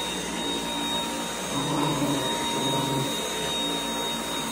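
Cordless stick vacuum cleaner with a soft roller head running on carpet, a steady motor hum with a high whine. A few short low sounds rise over it around two and three seconds in.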